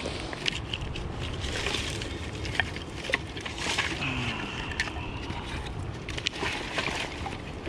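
Steady outdoor wind and water noise, with scattered light clicks and knocks.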